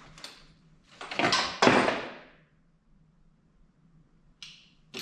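Brief rustling and scraping handling noises, two loud ones close together about a second in and a short sharper one near the end, as the catch can and its paper instruction sheet are handled.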